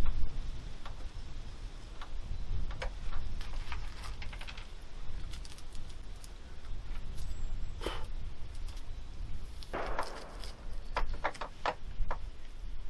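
Handling and loading noises from a Swedish 1851 Kammerlader breech-loading rifle: scattered light clicks and rattles of its metal parts, a short rustle about ten seconds in, then a quick run of metallic clicks as the breech lever is raised and the chamber tips up.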